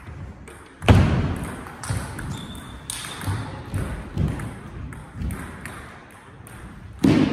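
Knocks and thuds echoing in a large hall between table tennis points: a loud sharp one about a second in and another near the end, with softer thumps about every half second in between and faint high clicks.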